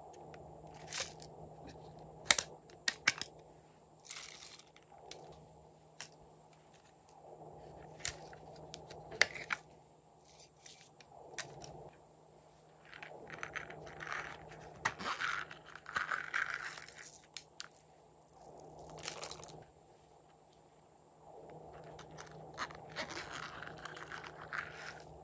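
Hands handling small plastic toy containers: sharp clicks as lids and cases are opened, then small plastic sprinkles and confetti rattling and scattering out onto slime in rustling, crackling patches.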